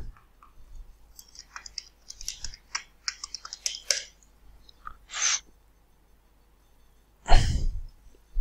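Stylus tapping and scratching on a pen tablet while handwriting, a quick run of light ticks in the first few seconds. Near the end comes a loud, short rushing burst on the headset microphone.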